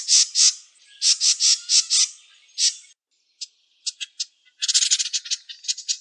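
Wren song: bursts of high, rapid notes and trills, with a short break near the middle and a fast run of notes starting about four and a half seconds in.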